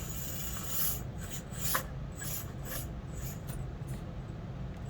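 Micro-scale Axial SCX24 crawler driving over the course: its small electric motor and gearbox run steadily under a scraping, rubbing noise from tyres and chassis on the terrain, with a sharp click about two seconds in.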